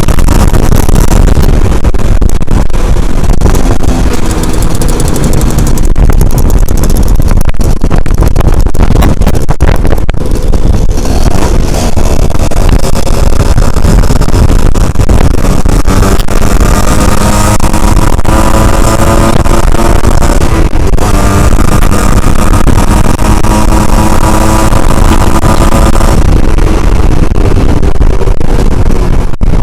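Yamaha Alfa two-stroke motorbike engine running under way on a ride, with heavy wind rumble on the microphone. Its pitch climbs as it accelerates, dips briefly and climbs again.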